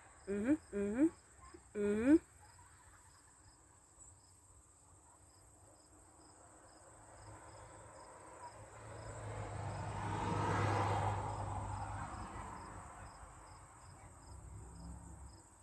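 Distant thunder rumbling, swelling over several seconds about halfway through and dying away, over steady chirping of crickets.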